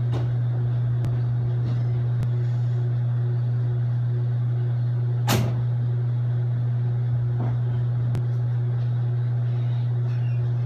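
A steady low hum that does not change in level, with one short click about five seconds in.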